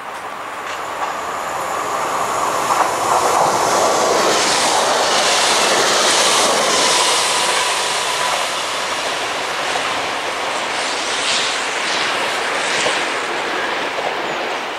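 An electric multiple unit passes by on the line, with wheels running over the rails and a steady motor whine that drops slightly in pitch as it goes by. The sound swells over the first few seconds and then slowly fades as the train draws away.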